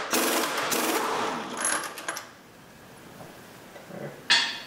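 Pneumatic impact wrench hammering on a tight 30 mm front axle hub nut, stopping about two seconds in. A single sharp metallic clink near the end.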